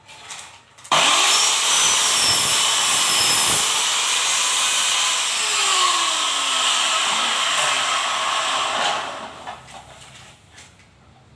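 Loud, steady mechanical whirring from a motorised machine that starts abruptly about a second in, with a few slowly sliding lower pitches, and dies away near the end.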